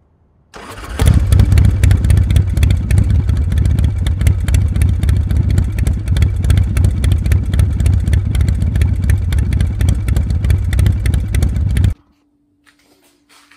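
Harley-Davidson V-twin motorcycle engine running, a loud steady low pulsing beat. It starts faintly, gets much louder about a second in, and cuts off sharply near the end.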